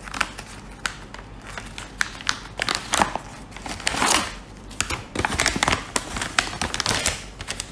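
Crumpled paper padded mailer crinkling and rustling as it is handled and tipped up, with irregular crackles, while a smaller padded envelope slides out of it.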